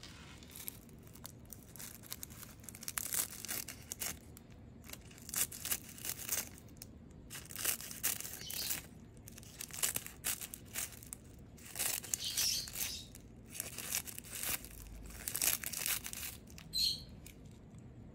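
Dry, crisp seaweed sheets being crumbled and torn apart, crackling in short irregular bursts about once a second.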